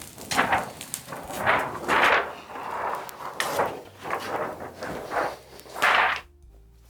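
A sheet of paper rustling and crinkling in a quick run of short swishes as it is handled and laid on the gel plate; the rustling stops abruptly near the end.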